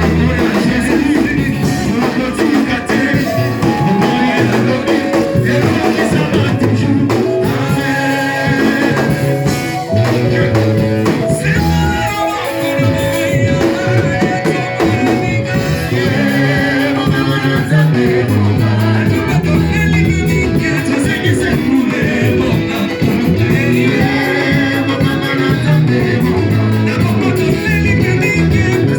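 Live church worship music with singing over a band of bass, guitar and drums, playing a steady beat.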